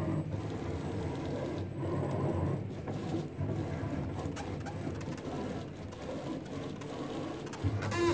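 Stepper motors of a CNC router driving a marker-pen head across the sheet as it draws, a buzzing whir whose pitch shifts as the head changes direction and speed.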